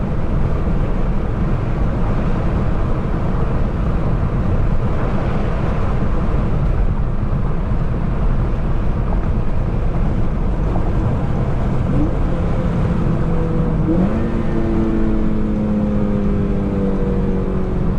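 A car's four-cylinder engine running under steady road noise while driving. About fourteen seconds in, the engine note steps up sharply in pitch, then slowly falls away.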